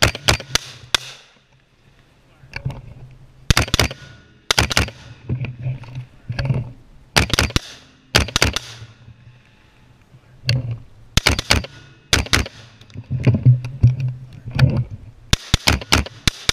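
Short-barrelled AR-15 rifle firing in quick pairs and short strings, with pauses of one to two seconds between groups. Each shot is a sharp crack with a brief echo.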